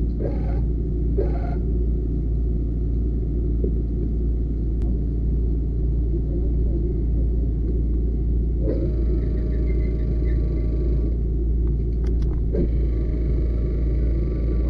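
Steady low rumble of a running engine, most likely the fire truck's engine driving its water pump. A faint hiss joins about nine seconds in.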